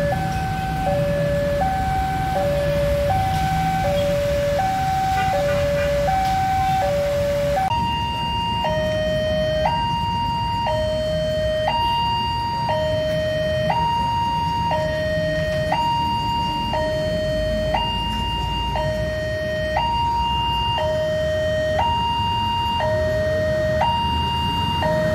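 Railway level-crossing warning alarm sounding a steady electronic two-tone hi-lo signal, switching about twice a second. About eight seconds in it changes to a slower two-tone alarm of a different crossing, with tones farther apart in pitch that switch about once a second. Road traffic rumbles underneath.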